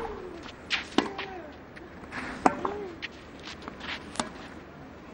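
Tennis ball hit back and forth with rackets in a baseline rally on clay. Each hit is a sharp pop, about one every second and a half, and two of the shots come with a short falling vocal exhalation from a player.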